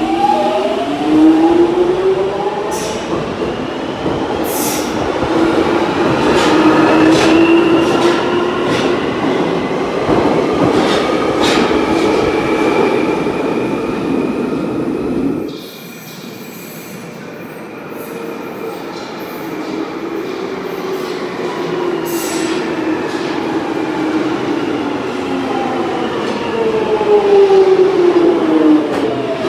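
London Underground 1996 Tube Stock train pulling out, its traction motors whining up in pitch over loud wheel and rail noise with a few sharp clicks. The sound cuts off suddenly about halfway. Another 1996 Tube Stock train then approaches and runs in, growing louder, its motor whine falling in pitch as it brakes near the end.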